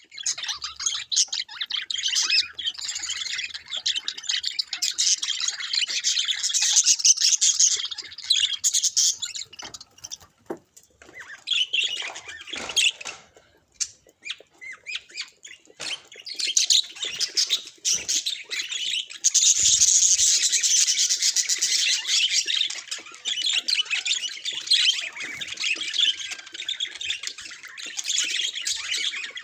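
Budgerigars chattering and warbling in rapid high chirps and squawks, breaking off briefly a few times.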